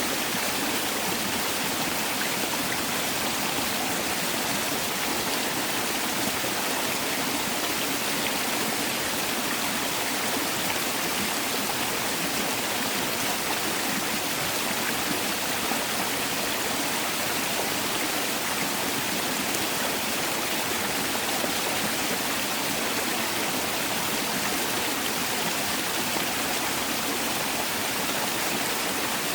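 Mountain valley stream rushing steadily over rocks: a constant, even wash of flowing water.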